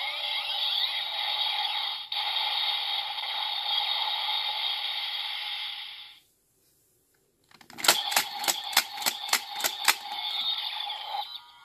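Ghost Driver toy belt's small speaker playing its electronic transformation sound effects and music, cutting off suddenly about six seconds in. After a short silence comes a quick run of about eight sharp plastic clicks as the belt's lever is worked by hand, with the toy's electronic sounds starting again under them.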